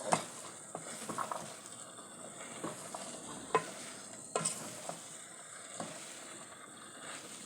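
Boiled beans being stirred into vegetables frying in a pot, over a steady sizzle. A spoon scrapes and knocks against the pot a handful of times, the sharpest knocks near the start and around the middle.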